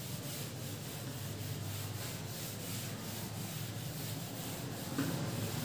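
Whiteboard duster rubbing across a whiteboard, wiping off marker writing in quick repeated strokes.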